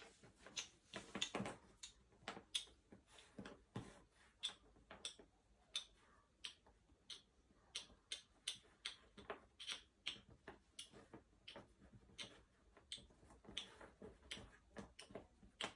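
Faint, uneven clicks and taps, two or three a second: cardboard jigsaw puzzle pieces being handled and pressed down on a tabletop.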